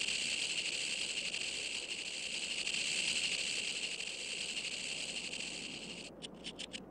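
Western diamondback rattlesnake's rattle buzzing steadily, then breaking into a few short stuttering pulses near the end.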